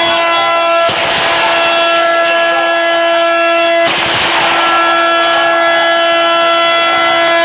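A siren sounding at a steady pitch, with two heavy booms rolling away about a second in and again three seconds later. These are part of a ceremonial series of siren and booms.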